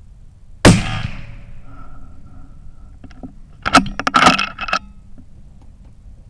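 A single very loud .338 Lapua Magnum rifle shot from a Ruger Precision Rifle, with a decaying echo. About three seconds later comes a quick run of metallic clicks and clacks as the bolt is worked to eject the spent case and chamber the next round.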